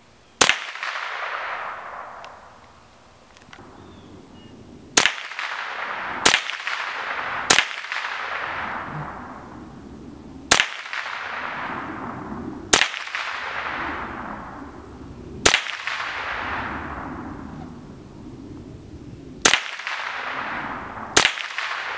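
SIG Sauer 522 semi-automatic rifle firing .22 Long Rifle rounds one at a time, nine shots a second or more apart at an uneven pace, each followed by a long fading echo.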